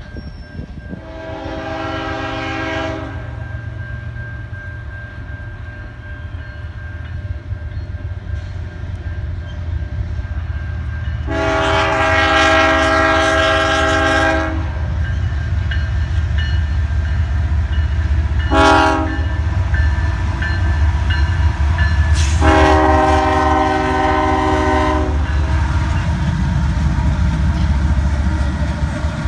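Diesel freight locomotive air horn sounding the grade-crossing signal: long, long, short, long. Under it runs the deep rumble of the locomotives' engines, growing louder as the train approaches.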